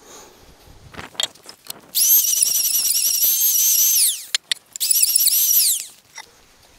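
Electric hand planer cutting timber in two short runs: a high whine that wavers in pitch as the blades bite, winding down with a falling pitch at the end of each run, after a few knocks. It is shaving the end of a square timber rail to fit a mortise.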